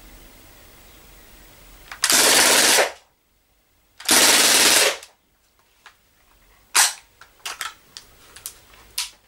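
Crosman DPMS SBR CO2 BB rifle firing two full-auto bursts, each just under a second long, about a second apart. Several short, sharp clicks follow at uneven spacing near the end.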